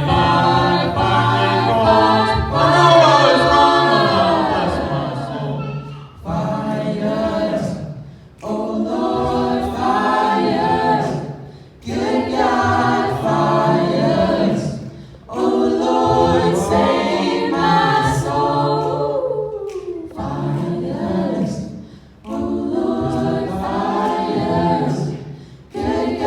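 An a cappella vocal octet singing in close harmony, with a low sung bass line under the upper voices, in phrases of a few seconds broken by short breaths between them.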